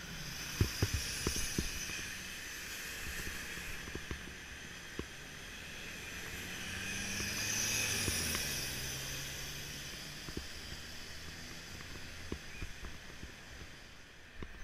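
Low street traffic noise heard from a bicycle-mounted GoPro, with a city bus's engine and hiss swelling louder around the middle as the bike passes close beside it, and scattered light knocks.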